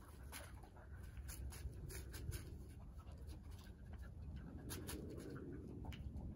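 Faint scratchy rustling with scattered light ticks over a low steady rumble, the scratching strongest briefly about five seconds in.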